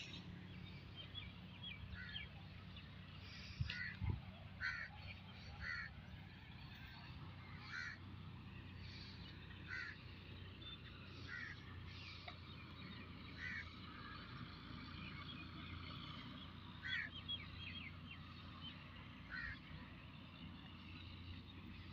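Radish plants rustling and their green seed pods snapping off as they are picked by hand, a short crisp snap every second or so, with one louder knock about four seconds in.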